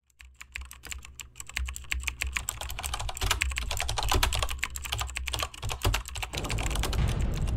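Rapid, irregular clicking like typing on a keyboard, over a steady low rumble; a hissing noise comes in about six seconds in.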